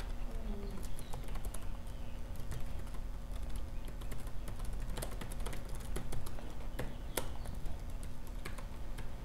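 Irregular clicks of typing on a computer keyboard, light keystrokes coming in scattered bunches, over a low steady room hum.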